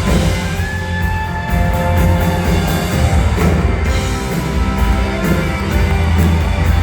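Rock band playing live: guitar notes held over a steady drum beat.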